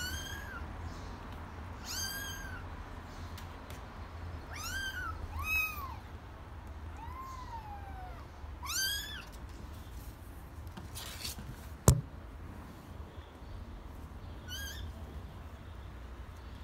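Kittens mewing: about eight short, high calls that rise and fall in pitch, spaced out, with one lower, longer mew midway. A single sharp click about two-thirds of the way through is the loudest sound.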